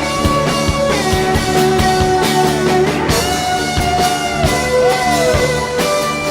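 Live worship band playing an instrumental break: a lead guitar holds long notes that bend and slide in pitch, over drums and a steady bass.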